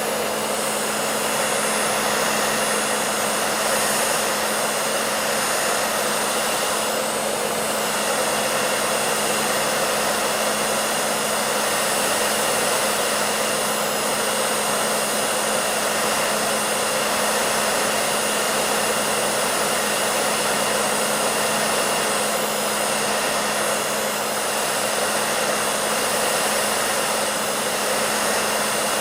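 Hair dryer running continuously: a steady rush of air with a constant motor hum underneath.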